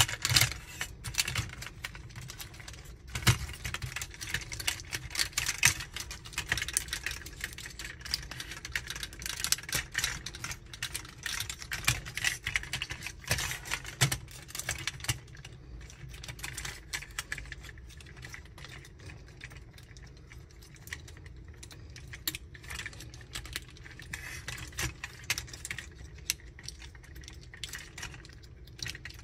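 Plastic parts of a Magic Square MS-02 Light of Peace transforming robot figure clicking and rattling in the hands as its joints and panels are folded: irregular small clicks, busiest in the first half and sparser later.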